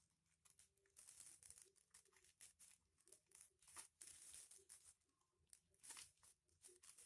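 Faint crinkling and rustling of foil-covered paper being folded and creased by hand, in several short bursts.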